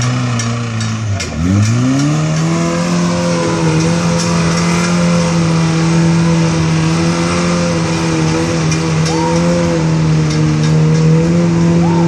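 Rock crawler buggy's engine revving hard as it climbs a steep dirt and rock hill; the revs dip briefly about a second in, rise again, then hold steady and high.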